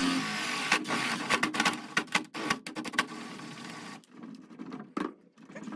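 A quick run of light clicks and knocks from hand work on the wooden door, most likely a finger pull cup being pushed and tapped into its freshly drilled hole, with one last knock near the end.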